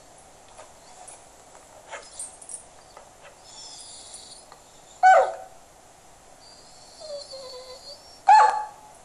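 Chocolate Labrador retriever whining softly, with two short, loud barks, about five seconds in and again about three seconds later.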